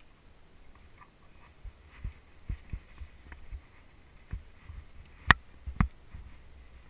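Irregular thumps and clicks of rappelling gear, rope and the climber's body knocking against a sandstone rock face during a descent. A sharp click a little past five seconds in is the loudest, followed by a second one half a second later.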